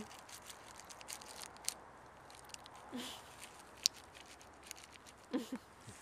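Dry fallen leaves rustling and crackling faintly, with scattered small ticks. Two short, low, voice-like sounds: one about three seconds in and one near the end.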